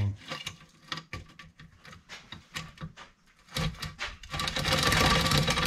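Stihl saw chain being pulled by hand around a chainsaw bar, its links clicking and rattling over the bar rails: scattered clicks at first, then a faster, louder continuous rattle for the last two seconds.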